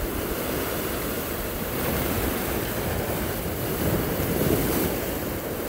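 Sea waves washing and breaking against a rocky shore, swelling louder a couple of times, with wind buffeting the microphone.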